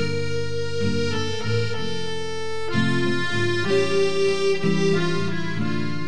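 Instrumental background music: a melody over held chords.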